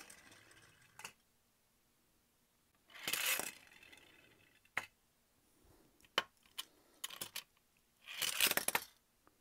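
Small plastic toy vehicles, a Mega Bloks Thomas engine and Bertie bus, rolling and clattering. Scattered sharp plastic clicks and knocks mix with three short scraping, rustling bursts, the last one about eight seconds in.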